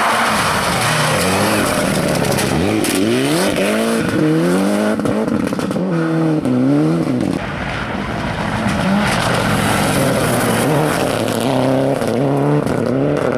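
Mitsubishi Lancer Evolution rally cars' turbocharged four-cylinder engines accelerating hard past on a gravel stage. Engine pitch climbs and drops sharply again and again as the cars change up through the gears, and a second car follows near the end.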